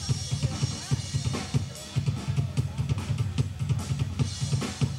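Drum kit played live: a fast, steady beat of bass drum and snare, with a few louder cymbal hits.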